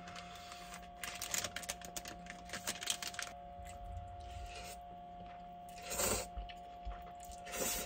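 Typing on a computer keyboard: quick runs of key clicks, densest in the first three seconds, with two louder swishes about six seconds in and near the end.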